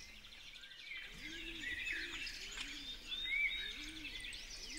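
Several birds chirping and trilling, with a low arched call repeating underneath about every second.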